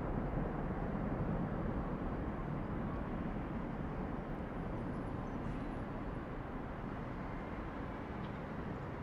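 Jet engines of a Boeing VC-25A (747) making a steady, distant rumble as the airliner rolls down the runway away from the listener, the sound slowly fading.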